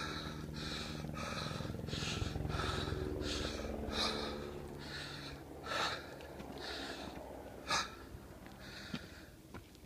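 A hiker breathing hard while climbing uphill, with quick breaths about twice a second close to the microphone. There is a brief knock about three-quarters of the way through.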